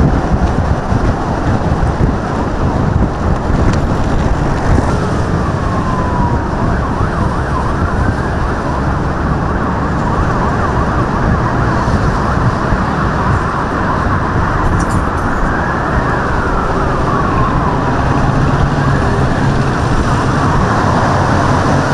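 Motorcade escort siren wailing in slow rising and falling glides a few times, half-buried under a loud steady wash of wind and road-traffic noise.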